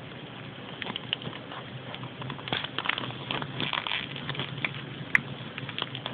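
Crinkling and crackling of a blind-bag wrapper being handled and opened: irregular small crackles and rustles.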